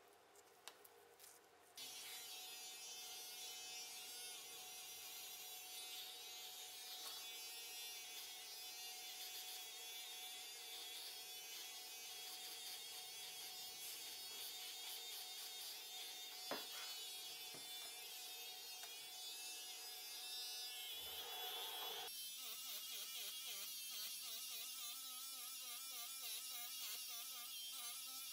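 Corded electric hair clippers buzzing steadily as they shave a cat's matted fur, after a few light clicks in the first two seconds. About three-quarters of the way through, the buzz shifts in tone and starts to waver.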